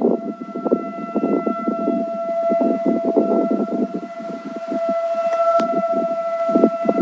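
Whelen 1,600-watt electronic siren with a rotating speaker array, sounding one steady tone that swells and fades in loudness as the speakers turn. Heavy wind noise on the microphone under the tone.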